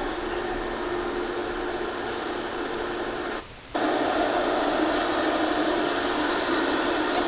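Steady rumble and hiss of a double-stack container train rolling past, played back through a TV speaker. It drops out briefly about halfway through and returns a little louder.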